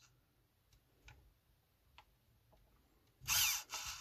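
RC car's steering servo whirring in two short bursts near the end as it swings the front wheels between full lock and straight ahead, while the steering endpoints are being set. It follows a few faint clicks from the transmitter's buttons.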